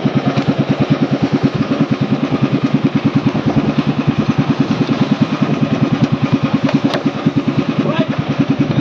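Outboard-style engine of a small outrigger fishing boat running steadily, with a fast, even chugging of about seven beats a second. A single sharp click comes about seven seconds in.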